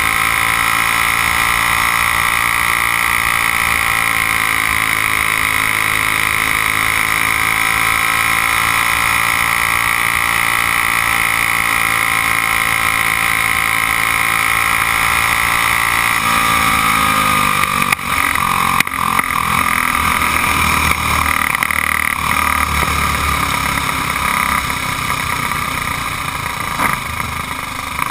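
Onboard sound of a Briggs & Stratton Raptor racing-kart engine running at speed, its pitch swelling and easing slightly as the kart goes round the oval. About sixteen seconds in, the revs drop sharply and the engine runs slower and rougher, with a few knocks, as the kart slows.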